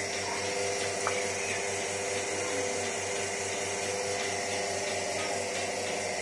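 Milking machine's vacuum pump unit running steadily: a constant motor hum with a regular fast pulsing beat underneath.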